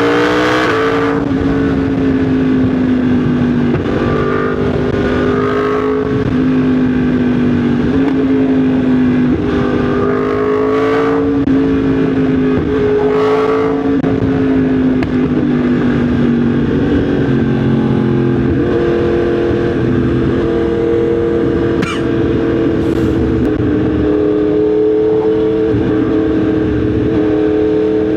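Yamaha MT-10 SP's crossplane inline-four engine running under way, heard onboard: it revs up at the start, then cruises with the engine note drifting gently up and down as the throttle changes, over steady wind and road noise.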